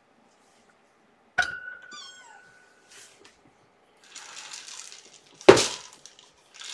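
A kitten mews briefly about a second and a half in, just after a sharp knock with a short ringing tone. Then come rustling and a loud thump near the end.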